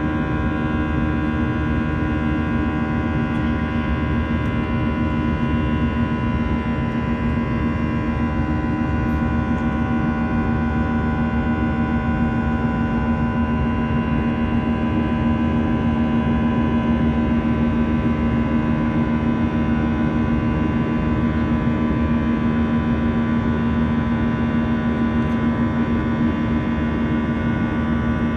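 Airbus A320-200's jet engines heard from inside the cabin over the wing during the climb: a steady drone with a strong low hum and several fixed whining tones above it.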